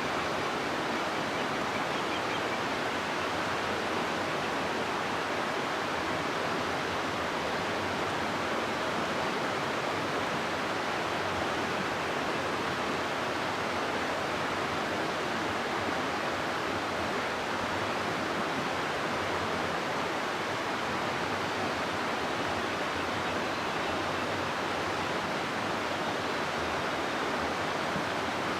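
River water rushing steadily over rocks through a gorge, a constant even rush of white water.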